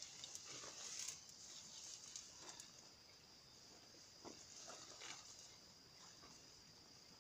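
Faint, irregular rustling and crackling of brush and a plastic protective suit as someone shifts about in the undergrowth, over a steady high-pitched insect chorus.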